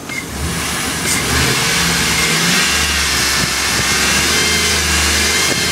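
2004 Chevrolet SSR's 5.3-litre V8 running, heard from over the open engine bay. Its note shifts a little in the first two seconds or so, then settles and runs steadily.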